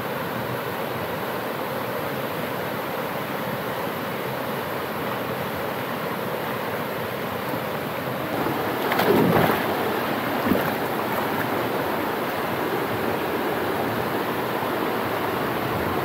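Waterfall water rushing in a steady roar, with a louder swell lasting about a second, about nine seconds in, and a short knock soon after.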